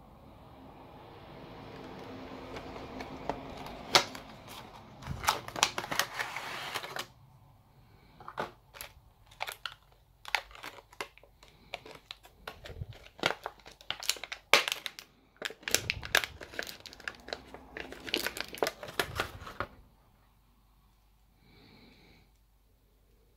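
Clear plastic packaging and blister tray crinkling and clicking as in-ear headphones are unpacked. A rubbing noise swells over the first several seconds, then comes a long run of sharp crackles and clicks that stops a few seconds before the end.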